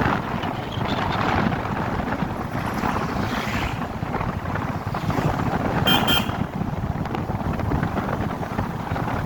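Motorcycle riding along, its engine and road noise mixed with heavy wind buffeting the microphone. A short high-pitched beep cuts through about six seconds in.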